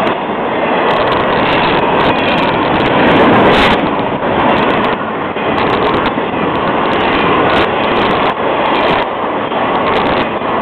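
Freight train's double-stacked container well cars rolling past close by: a steady, loud rumble and rattle of wheels on rail, with irregular sharp clicks and clacks scattered through it.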